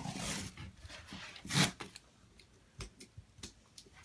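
Packing tape on a cardboard box being cut with a Swiss Army knife: scratchy slicing and rustling strokes, one louder about a second and a half in, with a few short clicks later.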